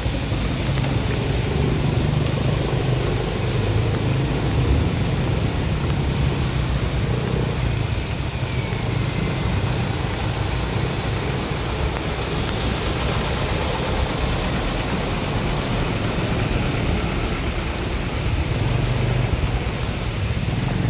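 Motorbikes and a truck driving along a flooded road, their engines running steadily and close by, with the wheels going through the water.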